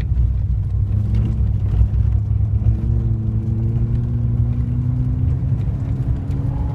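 VW Golf GTI 1800's 1.8-litre four-cylinder engine pulling along a snowy road, heard from inside the cabin over a heavy steady rumble of tyres and road. The engine note rises slowly for several seconds, then drops near the end.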